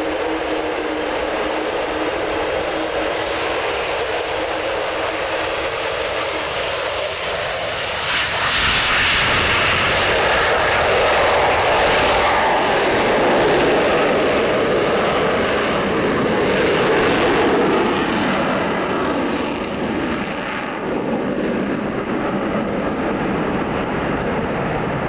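Avro Vulcan XH558's four Rolls-Royce Olympus turbojets at take-off power, heard through the take-off run, lift-off and steep climb-out. The jet roar grows louder about eight seconds in as the bomber comes past and climbs, stays loud for about ten seconds, then eases slightly as it climbs away.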